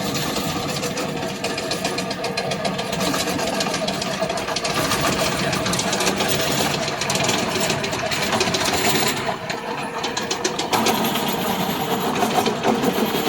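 The Loncin 9 hp single-cylinder petrol engine of a remote-control lawn mower running with a fast, even rattle. Its sound thins for a moment about nine seconds in, then comes back fuller.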